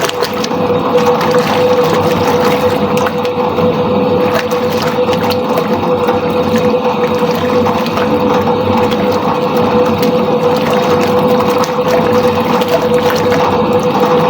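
Soviet washing machine running a wash: a steady motor hum under the churning and sloshing of water in the tub.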